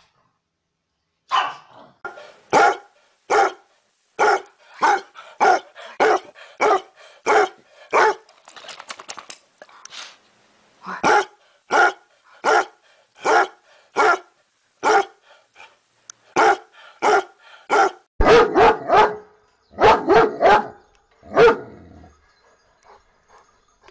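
Dogs barking in a long run of single barks, about one to two a second, with a basset hound barking in the middle. Near the end comes a quicker burst of heavier, louder barks.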